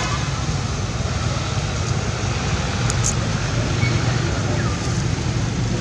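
Steady rumble of road traffic, an even noise with no distinct events.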